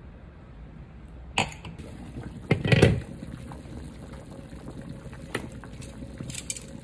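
A glass pot lid lifted off a steaming pot of soup and set down with a clatter on a glass-top stove, the clatter being the loudest sound, about two and a half seconds in. The soup simmers underneath, with a few light clicks of metal tongs against the pot as the chicken is lifted out.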